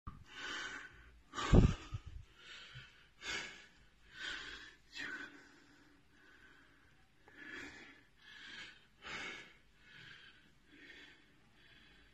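A man breathing hard after exertion: quick, forceful breaths about one a second, weakening near the end. A loud thump about a second and a half in.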